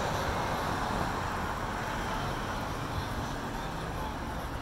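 Road traffic noise on a busy street: a steady rush of vehicles passing, slowly fading.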